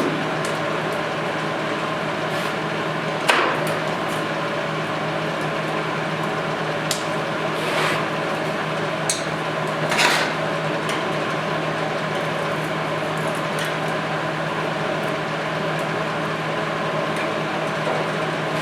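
A steady machine hum runs throughout, with a few sharp metal knocks and taps from sheet-metal panels being handled and lined up: one about three seconds in and lighter ones around eight and ten seconds.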